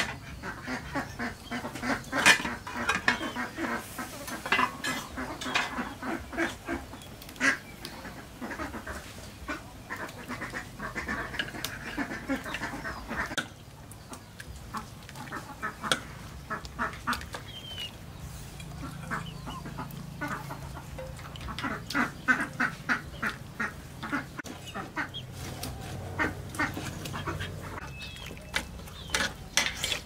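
Domestic ducks quacking in repeated bursts of short calls, with occasional metal clinks from the aluminium cooking pot and its lid.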